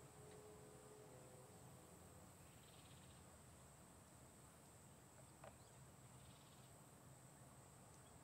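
Near silence: faint background hiss with a faint high trill about every three and a half seconds, and one small tick past the middle.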